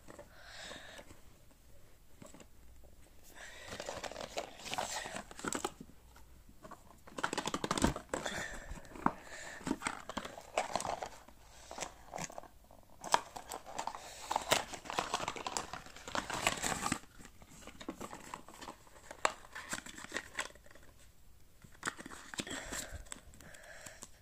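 Speedcube packaging being opened by hand: crinkling and tearing of wrapping and handling of the cardboard box, in irregular bursts with a few sharp clicks, busiest through the middle stretch.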